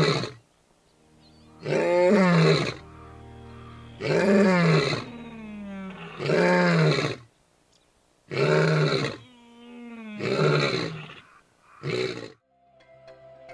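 A lion roaring in a bout of about six loud calls, each about a second long and some two seconds apart, the last one short, over soft background music. The roaring stops near the end and the music carries on.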